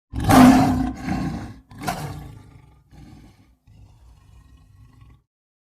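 Lion roaring: a loud full roar, then a second shorter roar, then a run of quieter, lower calls that trail off.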